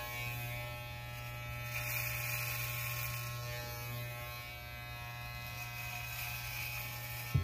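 Corded electric hair clippers running with a steady buzz while shaving a head. A brief click near the end.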